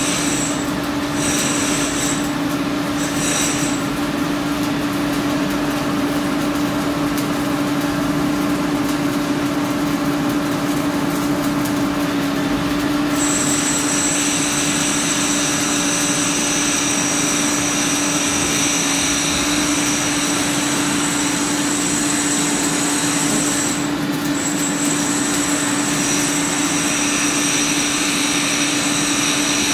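Electric welding arc sizzling continuously while a bead is run on steel, over a steady hum. A thin high whine joins about halfway through.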